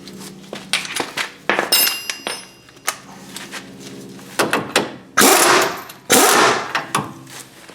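Impact wrench running a nut up onto a ball joint or tie rod stud, in two short rattling bursts near the end, after a few seconds of scattered metal clicks and knocks over a steady hum.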